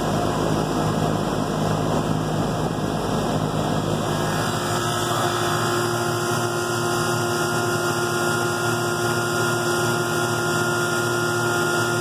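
A 1995 Janitrol heat pump outdoor unit running steadily: an even hum of the compressor and fan, with a good refrigerant charge. About four seconds in the low rumble eases and a steadier hum with a higher tone comes forward.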